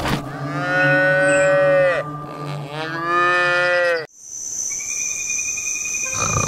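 Cow mooing twice, two long calls that each drop in pitch at the end. Just after the second call the sound cuts off suddenly, giving way to a steady high-pitched tone.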